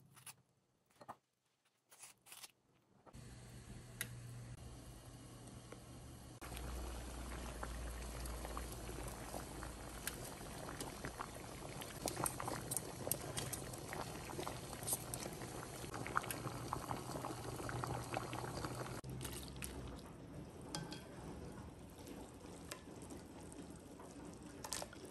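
Water boiling in a pot on the stove as thin noodles are stirred with tongs, with light taps against the pot. Near the end it turns quieter, with water dripping and splashing as the noodles are lifted into a tub of cold water.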